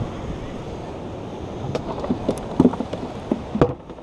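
Wind buffeting the microphone over ocean surf. In the second half comes a handful of sharp knocks and clicks, the loudest two about a second apart. The sound drops off abruptly just before the end.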